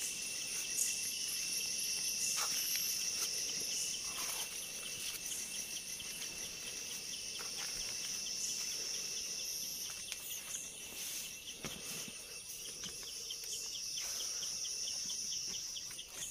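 Crickets and other night insects trilling together: one high, continuous trill and a lower one that pulses rapidly and evenly. A few faint knocks come through now and then.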